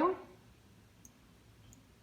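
Two faint, light clicks, about a second in and again near the end, from a small essential-oil dropper bottle being handled over a glass jar as drops are added; otherwise a quiet room.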